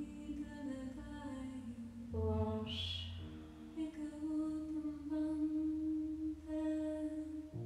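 Slow, calm background music of long held notes with a wordless singing voice.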